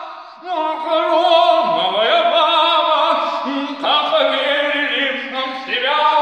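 A man singing long, held notes with vibrato, stepping between pitches, with no words made out.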